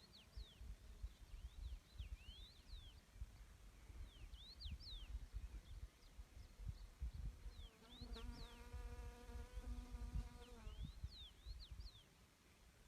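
A songbird repeating short phrases of quick rising and falling chirps every couple of seconds, over a low wind rumble on the microphone. About eight seconds in, an insect buzzes close by for two to three seconds.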